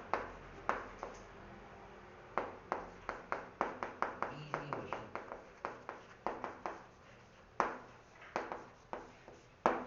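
Pen strokes while writing out a line of text: a string of short taps and clicks, two or three a second, with a brief pause in the middle.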